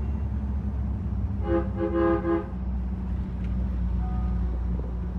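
Heavy truck's diesel engine droning steadily, heard inside the cab while driving, with a vehicle horn tooting three quick times about a second and a half in.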